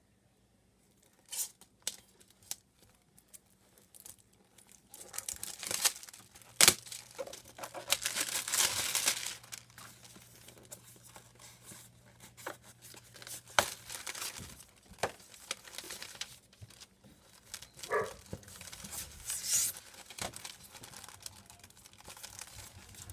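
Packaging being torn and crumpled by hand, in irregular rustling bursts with scattered sharp clicks and knocks of handling.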